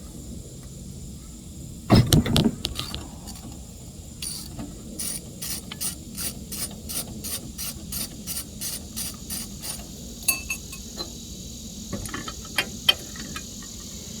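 A hand socket ratchet clicking: a sharp clatter about two seconds in, then a steady run of about three clicks a second for several seconds, and a few scattered clicks near the end.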